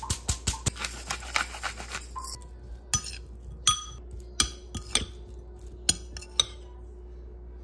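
A quick run of clicks as salt and pepper go into the salad. Then a metal spoon stirs potato and egg salad in a glass bowl, clinking against the glass now and then.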